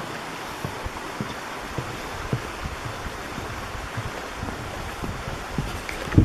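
Creek water rushing steadily over rocks, with irregular low thumps throughout, the loudest near the end.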